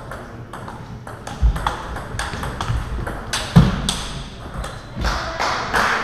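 Table tennis balls clicking off bats and tables in an irregular run of sharp ticks, some from neighbouring tables, in a reverberant hall. Two heavier thuds stand out about a second and a half in and again past the three-and-a-half-second mark.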